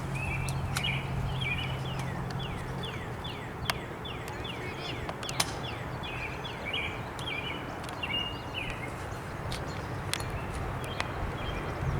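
Bird calling in a long series of short chirps and quick falling notes, a few each second, over outdoor background noise, with a few sharp clicks scattered through.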